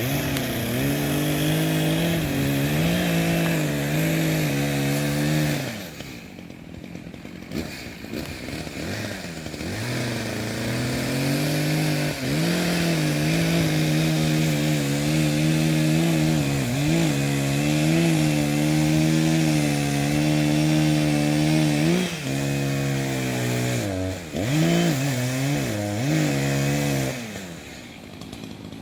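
Echo CS-590 Timber Wolf two-stroke chainsaw cutting into a tree trunk at high revs under load. It drops back to idle about six seconds in, then is throttled up and cuts again, its pitch dipping and recovering several times near the end.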